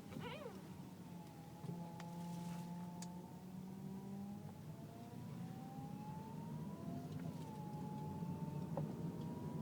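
Power steering whine from a car turning at low speed: a high, thin tone that slowly rises and falls in pitch over the steady engine hum. The owner takes it for a worn power steering pump, while a mechanic blamed the rack and pinion.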